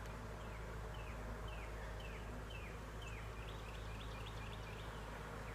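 A songbird singing a series of short down-slurred chirps, about two a second, that turns into a quicker run of short notes near the end. Underneath is a steady low hum from the honeybees around the open hive.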